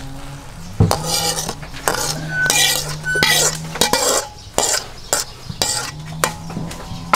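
Metal wok clinking and scraping against a ceramic bowl as cooked sauce is poured out of it, with the sauce splashing into the bowl. The clinks and scrapes come in quick irregular bursts from about a second in until shortly before the end.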